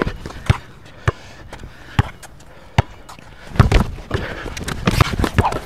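Basketball being dribbled on an outdoor hard court: single sharp bounces about once a second, then a louder, quicker run of knocks about three and a half seconds in as the players jostle under the basket.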